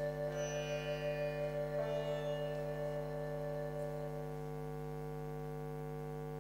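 Ambient drone music: a stack of held tones, one upper tone pulsing a couple of times a second and fading out about four seconds in, leaving the steady drone. A brief high ringing shimmers over it near the start.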